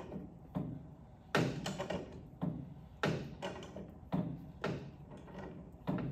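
A hand wrench being worked on a fitting at the top of a forklift mast's hydraulic cylinder: a string of about a dozen sharp metallic clanks and clicks, irregularly spaced, each ringing briefly.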